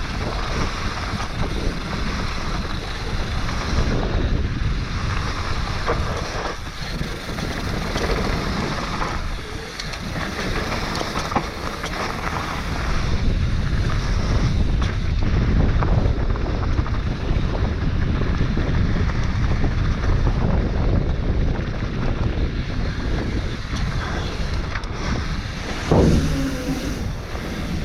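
Wind buffeting a GoPro Hero 7's microphone on a YT Tues downhill mountain bike descending a dirt trail, with the tyres rumbling and the bike rattling over the ground. There is a sharp thump near the end.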